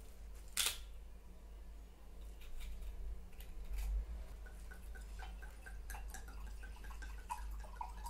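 A bottle cap twisted open with a sharp click and some rustling of a plastic bag, then liquid glugging from the bottle into a mug in a quick, even run of gurgles during the second half.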